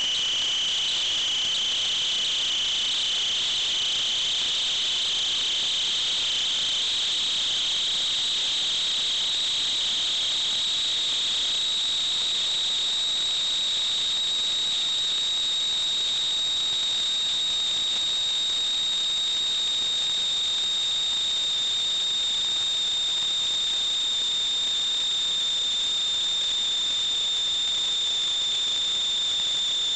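Steady high-pitched electronic whine picked up by the sewer inspection camera's recording equipment. It drifts slightly up in pitch over the first dozen seconds, then holds steady, with a fainter higher tone above it.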